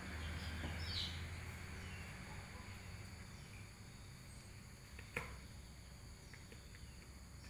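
Faint room ambience with a bird chirping briefly about a second in and a single sharp knock about five seconds in.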